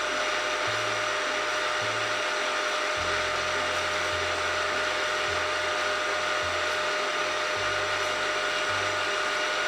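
Milling machine spindle running steadily at about 1600 rpm with a constant whine over a machine hum. The low hum shifts about three seconds in and again about seven and a half seconds in.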